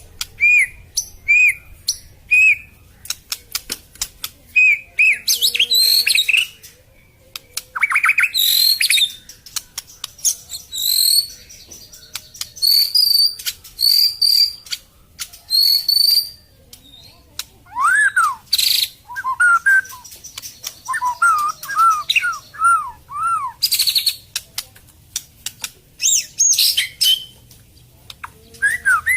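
White-rumped shama (long-tailed murai batu) singing a varied song of loud whistled notes and phrases, repeated arched notes and sharp clicks, with short pauses between phrases.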